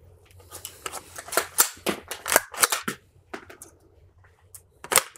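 Metallic clicks and clacks of an AR-15 rifle being handled to set up a malfunction drill: magazine released, charging handle racked to clear the chamber, magazine seated again. There is a quick run of sharp clicks over the first three seconds and one louder click near the end.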